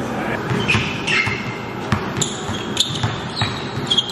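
Basketball being dribbled on a hard indoor gym floor, irregular bounces, with short high squeaks of sneakers on the court.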